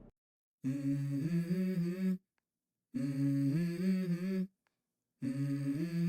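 Wordless humming in three short melodic phrases, each stepping up in pitch partway through, with brief silences between them.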